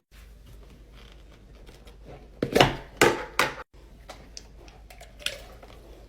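Clear slime being handled: a quick cluster of short knocks and squelching rustles about two and a half to three and a half seconds in, with a few faint clicks later.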